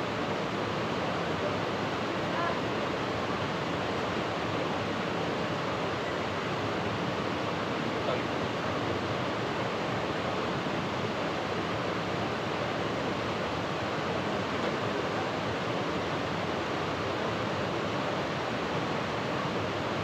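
Steady rush of water at an unchanging level, with no distinct events.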